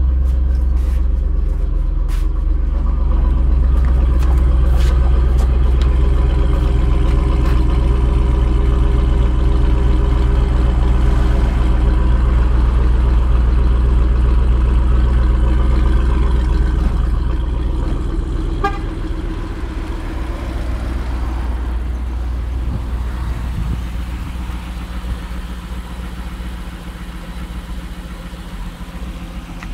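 Holden Commodore's 6.2-litre LS3 V8 idling with a steady, deep rumble. It grows gradually quieter through the second half.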